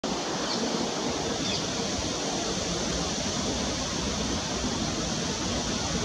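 Wind blowing through a plane tree's leaves: a steady rushing noise that keeps an even level throughout.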